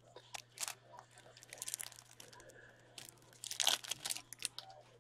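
Foil trading-card pack wrapper being torn open and crinkled by hand: a run of irregular crackling rustles, the loudest about three-quarters of the way through.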